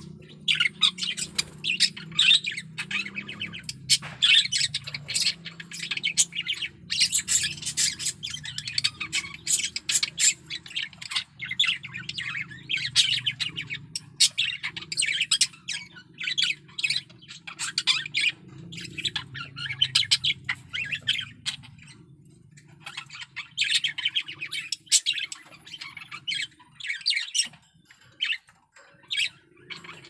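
Male budgerigar warbling: a fast, continuous chatter of chirps and squawky notes, pausing briefly about three-quarters of the way through and thinning out near the end. The bird is in strong breeding condition.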